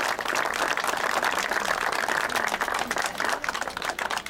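Applause from a small crowd, many hands clapping at once, thinning out near the end.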